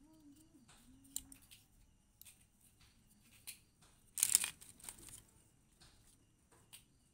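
Dry agarwood chips and splinters rustling and clicking as a hand handles them and moves through the pile, with a louder burst of crackling about four seconds in.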